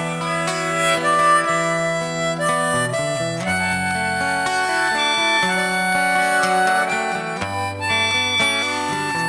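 Band music without vocals: an instrumental interlude with a reedy, held-note melody line over guitar and a bass line moving in steps.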